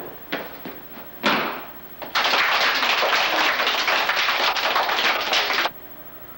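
A few light knocks and a thud, then a group of children clapping and cheering for about three and a half seconds, cutting off suddenly.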